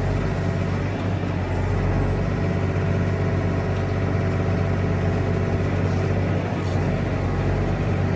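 An engine idling steadily, a constant low hum that holds the same pitch throughout.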